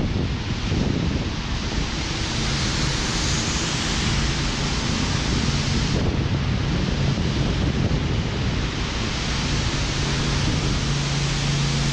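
Steady rushing wind noise on the microphone, with a low engine hum from passing traffic that grows stronger near the end.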